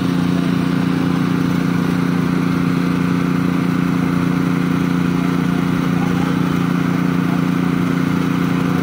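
Small petrol engine of a portable hydraulic power pack running steadily at constant speed, a low even hum. It drives the hydraulic rerailing jacks set under the derailed wagon's wheels.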